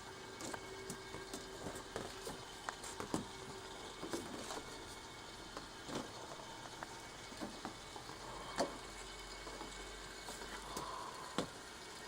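A string of irregular light clicks and knocks, a few of them louder, over a faint steady hum.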